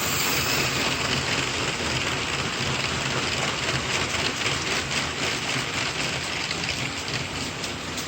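C62 steam locomotive giving off a steady hiss of steam, with a low rumble under it.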